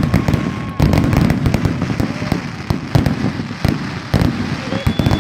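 Fireworks going off in quick, irregular succession, with many sharp bangs and crackles and a few high whistling tones.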